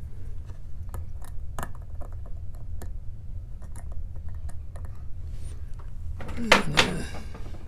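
A padlock and metal picking tools being handled, giving scattered small metallic clicks and taps over a steady low hum. Near the end there is a louder pitched sound lasting about half a second.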